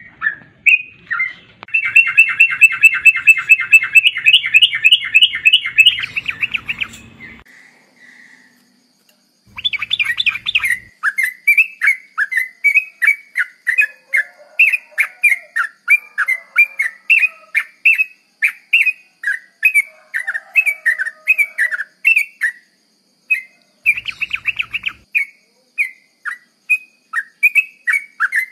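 Yellow-vented bulbul song: a fast chattering trill lasting about four seconds, a short pause, then a long run of loud, short bubbling whistled notes.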